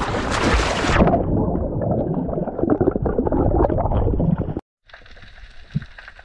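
A freediver plunging under the sea surface: a splashing rush of water for about a second, then muffled bubbling and gurgling heard underwater as he swims down. After a sudden cut about four and a half seconds in, quieter underwater ambience with faint crackling.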